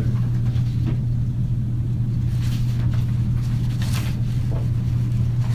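Steady low hum and rumble in the recording, unchanging throughout, with a couple of faint soft rustles about two and a half and four seconds in.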